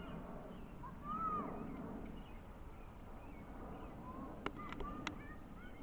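Birds chirping and calling, with one longer arched call about a second in and a few sharp clicks near the end, over a low steady background rumble.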